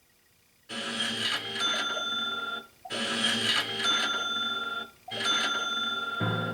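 A short clip of TV programme audio with bright, bell-like ringing tones, repeated almost identically three times about every two seconds, a stuttering loop of the same fragment in DVR playback. It starts after a moment of near silence.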